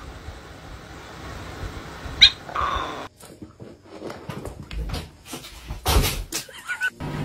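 A short animal cry about two seconds in, then a tabby cat and a dog scuffling together: scattered bumps and scrabbling, loudest about six seconds in.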